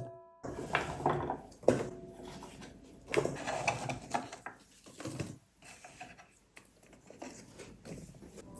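Kitchen handling sounds: scattered knocks and light clinks of dishes and utensils being handled and set down, a few ringing briefly.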